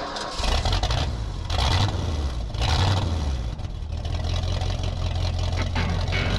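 An engine running and revving, its pitch and level swelling and easing several times.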